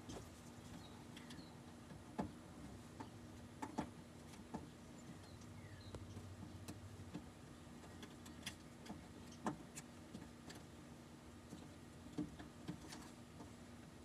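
Faint, scattered clicks and taps of hands working inside an open car door panel, pushing the window motor's wiring plug into its connector, with a few faint bird chirps.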